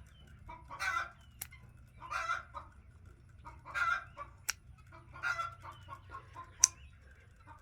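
Chickens clucking in short bursts about every one and a half seconds, with three sharp clicks in between, the last near the end being the loudest.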